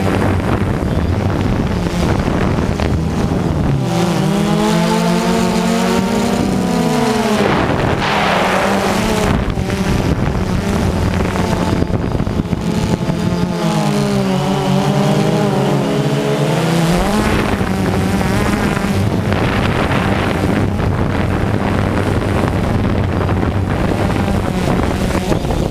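DJI Phantom 2 quadcopter's four electric motors and propellers buzzing in flight, heard close up from on board with wind noise. The pitch swoops up and down twice as the drone manoeuvres, a few seconds in and again around the middle.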